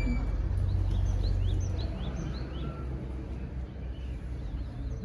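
A small bird calling in a quick run of short rising chirps for about two seconds, over a low outdoor rumble that eases after the first couple of seconds.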